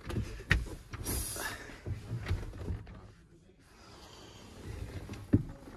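Scattered knocks and clicks of someone moving about inside a tractor cab, with a sharper knock near the end.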